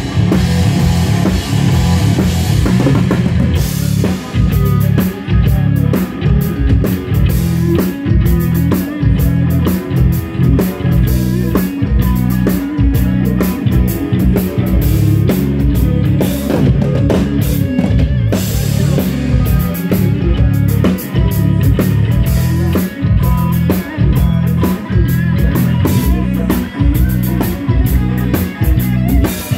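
Rock band playing loud and live: a drum kit with quick, heavy kick and snare strokes under electric guitar, with no singing.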